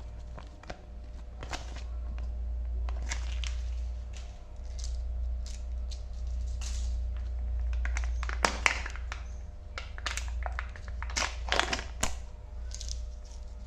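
Wrapper packaging crinkling and crackling as it is handled, in irregular short bursts with a few sharper clicks, over a steady low hum.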